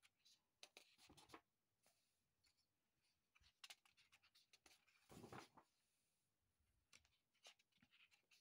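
Faint rustling of sketchbook paper pages being handled and turned, with two soft swishes of a page turning, about a second in and about five seconds in, and light paper taps and clicks between.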